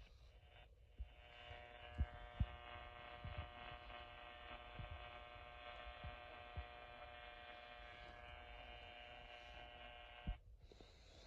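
Emergency Alert System attention signal, the steady two-tone alert buzz, played through a radio receiver. It runs for about ten seconds, starting just under a second in and cutting off abruptly near the end, with a few faint low thumps underneath.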